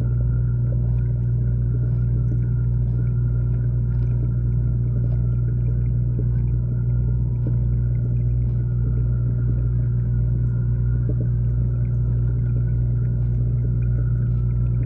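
Steady low mechanical hum heard through a camera underwater in a pond, with faint scattered ticks over it.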